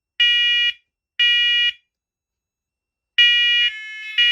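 First Alert smoke and carbon monoxide alarms sounding their test alarm: loud, high-pitched beeps of about half a second in the three-beep smoke-alarm pattern. After a pause of about a second and a half the beeps start again, and a second linked alarm joins slightly out of step.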